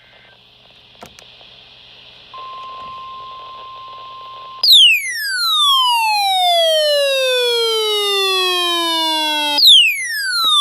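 The tail of a NOAA Weather Radio SAME data burst at the very start, then after about two seconds the steady 1050 Hz warning alarm tone. About two seconds later a weather radio receiver's alarm cuts in much louder: a falling siren-like sweep about five seconds long, which starts over near the end.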